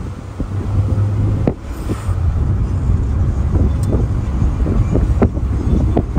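Wind rushing over the microphone while travelling along a street, with a steady low rumble and uneven gusts.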